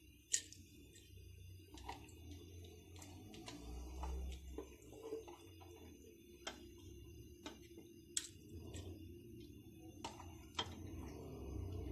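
A spoon stirring urad dal into boiling water in a metal pressure-cooker pot, knocking against the pot in scattered sharp clicks about once every second or two, over a faint low rumble.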